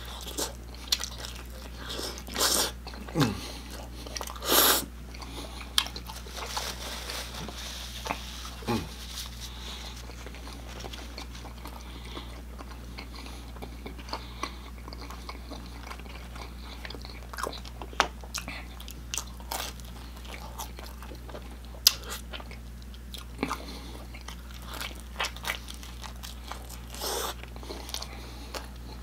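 A person biting into and chewing a crisp-crusted Domino's pepperoni pan pizza, with crunches and wet mouth clicks. The loudest crunches come in the first five seconds, then lighter chewing and smacks.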